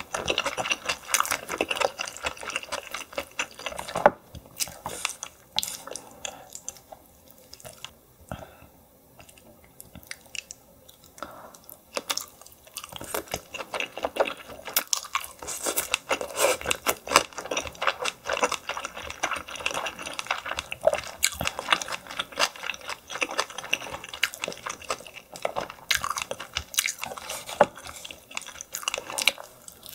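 Close-miked chewing and wet mouth sounds of eating steamed yellow stingray, with chopsticks clicking as they pick meat off a wooden board. It goes quieter for a few seconds near the middle.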